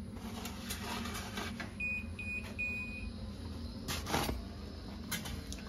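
Pizza oven's electronic notification beeping three times, two short beeps then a longer one, the signal that the pizza is ready. Light clicks and a knock about four seconds in, over a steady low hum.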